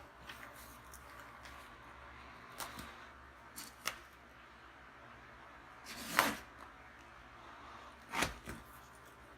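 Packaging being handled during an unboxing: a few short, separate rustles and knocks, the loudest about six seconds in and another about eight seconds in.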